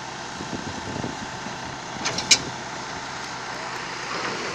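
Concrete mixer pump running steadily, with a few sharp clacks a little over two seconds in, the last one loud.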